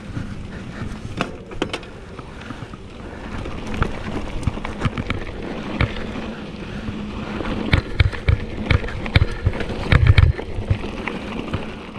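Mountain bike rolling over a rough, stony desert track: tyres crunching over stones while the bike rattles and knocks with each jolt. The rattling grows busier partway through, and the heaviest knocks and a low thud come near the end.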